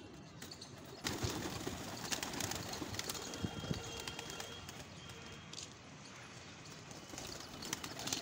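A flock of domestic pigeons cooing, with wings flapping as birds take off and land.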